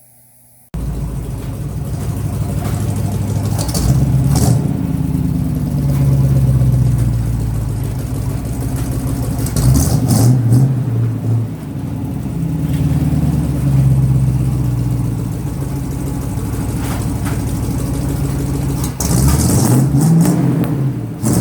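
1954 Fargo truck's engine running, cutting in abruptly just under a second in and revved up and down several times.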